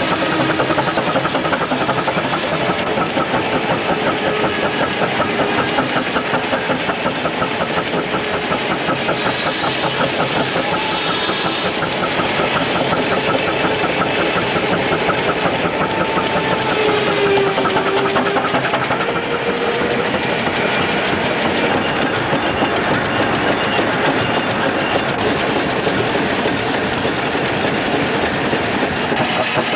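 Steam engine and tractor driving a belt-driven sawbench together, a steady fast beat of machinery running without a break. A faint wavering whine comes and goes about halfway through.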